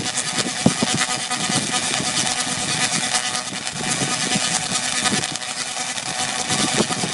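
Tesla coil firing: sparks from its top toroid make a steady, loud buzzing crackle with a few sharper snaps about a second in.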